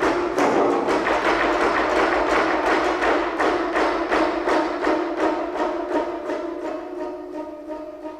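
Four geomungo, Korean zithers played with bamboo sticks and each tuned differently, sounding a dense stream of rapid, repeated plucked strokes that grows gradually softer over the second half.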